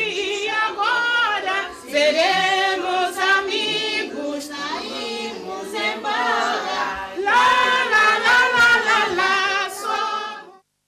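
A group of young children singing together with a woman's voice among them; the singing cuts off abruptly near the end.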